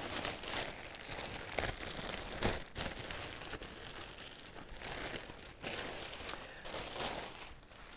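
A reusable bag being handled and unfolded, crinkling and rustling in irregular scrunches.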